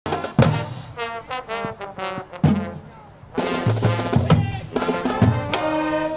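Brass-band music with drums: short brass stabs at first, then the full band plays on with a steady beat from about halfway in.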